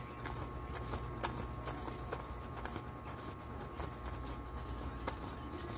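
Paper 20-peso banknotes being counted by hand one at a time: a short crisp flick of each bill as it is peeled off the stack, about two a second at an uneven pace.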